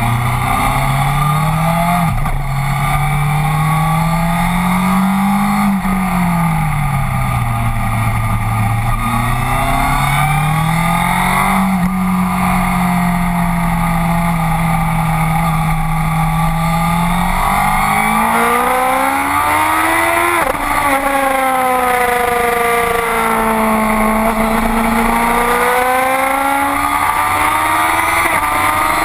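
A Honda CBR sport bike's engine, heard from on board, revving up through the gears and falling back under braking, its pitch dropping suddenly at each shift, over steady wind rush.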